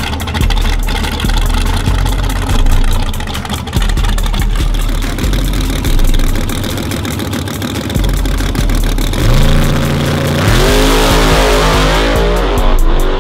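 Fox-body Ford Mustang drag car's engine idling roughly with repeated throttle blips on the starting line. About nine seconds in, it revs up hard and launches, the engine note climbing as the car pulls away.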